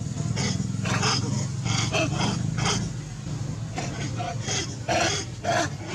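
Long-tailed macaques giving a string of short, sharp squeals and barks, over a steady low hum.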